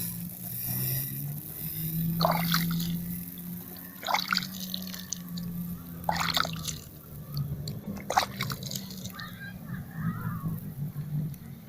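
Irrigation water watering grass: a steady trickle with short splashes about every two seconds, over a steady low hum.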